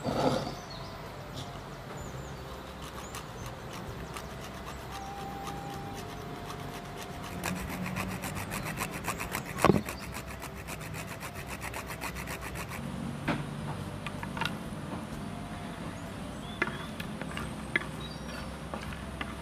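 Spatula scraping and stirring dry whole spices in a pan as they are dry-roasted, with scattered clicks; a stretch of fast, dense scraping strokes midway.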